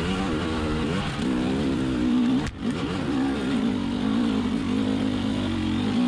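Fuel-injected 300 cc two-stroke single of a 2020 KTM 300 XC TPI enduro bike being ridden up a dirt trail, its revs rising and falling with the throttle, with a sudden brief dip in loudness about two and a half seconds in.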